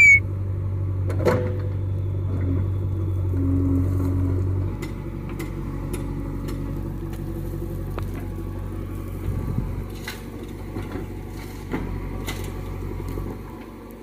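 The diesel engine of a JCB 3DX backhoe loader runs with a steady low drone that drops to a lower, quieter level about five seconds in. Scattered sharp knocks sound over it.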